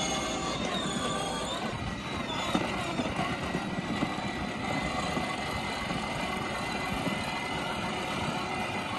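12 V electric ride-on toy car driving: a steady motor and gearbox whine with its plastic wheels rolling over the ground. A short melody plays over it in the first couple of seconds.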